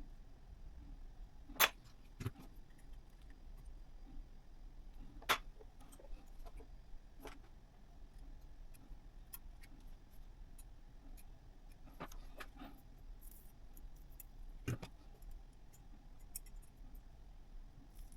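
Scattered sharp clicks and light clinks of small hard parts being handled and set down, with a dozen or so separate knocks spread unevenly and two louder ones near the start.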